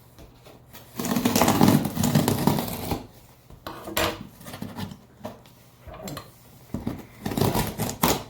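A big cardboard box being opened, with ripping and rustling in several noisy bursts. The longest runs from about a second in to three seconds.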